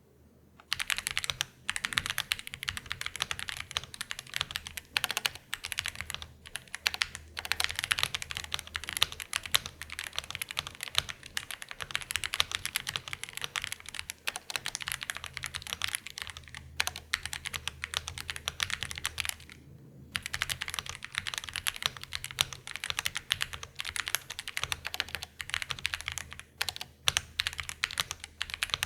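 Continuous typing on a YUNZII YZ87 gasket-mounted TKL mechanical keyboard with stock YUNZII Milk linear switches and PBT Cherry-profile keycaps: a dense, fast run of keystrokes that stops briefly about two-thirds of the way through.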